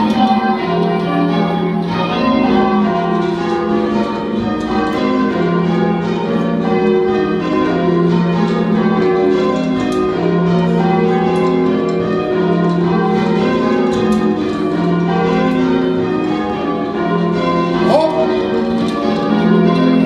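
Church tower bells rung in changes by a band pulling on bell ropes, the bells striking one after another in a steady, unbroken round.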